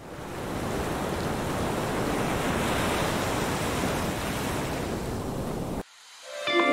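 Ocean surf, a steady wash of waves that fades in at the start and cuts off abruptly near the end. Guitar music starts just after.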